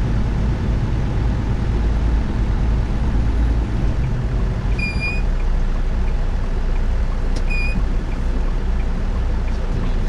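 Inside a semi-truck's cab while driving in heavy rain: the steady drone of the engine mixed with road and rain noise. Two short high-pitched tones sound about two and a half seconds apart near the middle.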